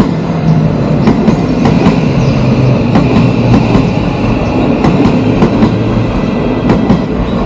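Odakyu 1000-series electric train passing close by, its wheels clacking over the rails in many sharp clicks over a dense rumble, with a low steady hum underneath.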